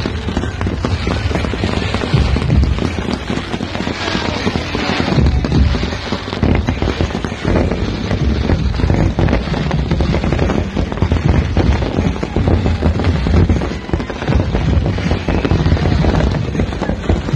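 Fireworks show: many shells bursting and crackling in quick succession, a loud, dense barrage with a heavy low rumble under it that never lets up.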